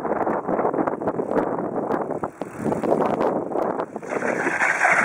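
Wind buffeting the microphone over the rumble and rattle of bicycle tyres rolling on paving stones, with scattered small clicks. About four seconds in, the noise changes to a steadier, brighter hiss.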